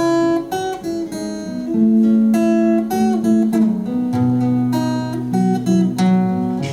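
Acoustic guitar playing an instrumental passage of plucked notes and strummed chords.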